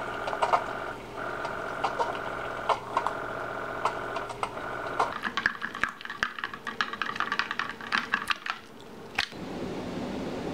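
Keurig single-serve coffee maker brewing. Its pump hums steadily, then about halfway through the brew turns to a crackling sputter and gurgle as the end of the cycle pushes air through. It stops with a sharp click near the end, leaving a steady low hiss.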